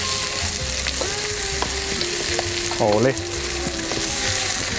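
Salmon fillet and sliced onions frying in hot olive oil with a steady sizzle, while a wooden spatula stirs them around the enamelled pan, with a few light taps against it.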